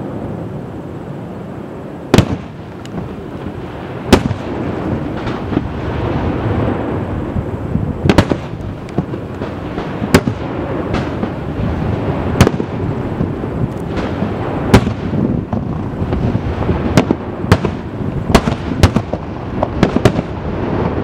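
Aerial firework shells bursting with sharp bangs over a continuous low rumble. The bangs come singly, a couple of seconds apart, then faster and in clusters near the end.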